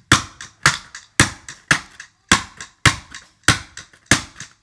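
Cardboard box holding a vinyl toy figure being struck hard over and over, about two knocks a second, each followed by a couple of quick smaller rattles.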